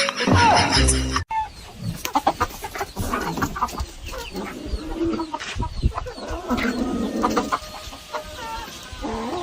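Chickens clucking in short, irregular calls, after a brief loud sound that cuts off abruptly about a second in.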